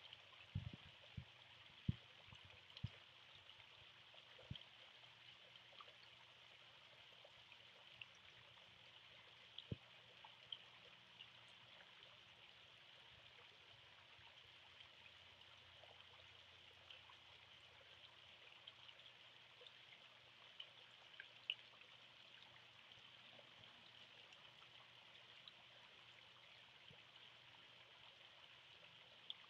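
Faint, steady trickle and splash of a tiered garden fountain, with a few brief knocks, most of them in the first few seconds.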